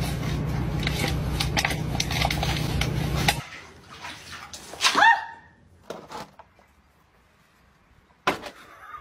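Steady low rumble of a car's interior while driving, with small knocks over it, cutting off sharply after about three and a half seconds. Then a few brief sounds, the loudest a short pitched cry about five seconds in.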